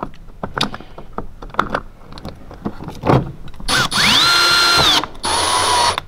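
Cordless drill-driver driving a screw into the plastic door trim at the inside door handle: a motor whine rises in pitch and holds for about a second, stops, then runs again briefly at a lower pitch as the screw is run in tight. Before that, light clicks of the tool and trim being handled.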